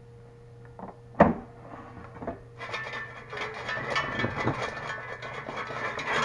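Air fryer basket pulled out of the unit with one sharp clack about a second in. A few seconds of dense crackling and rattling follow as the basket of hot fries is handled.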